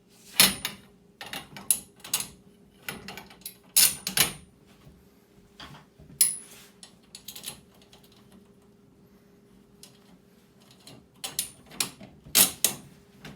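Screws and nuts clicking and clinking against the serving cart's shelf and frame as they are fitted by hand, in irregular sharp clicks, some with a short metallic ring. The clicks bunch up in the first few seconds and again near the end, with a quieter stretch in between.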